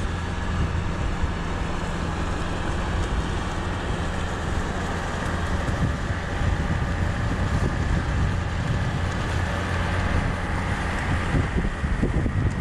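Ford Ranger Raptor pickup driving on a gravel track: a steady low rumble of engine and tyres, with wind buffeting the microphone held at the open window.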